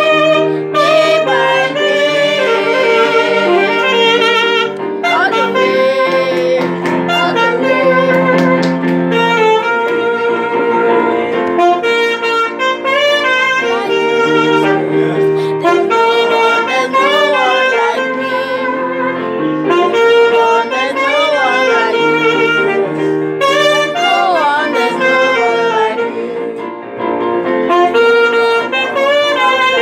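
Saxophone playing a melody with pitch bends and vibrato over sustained accompanying chords.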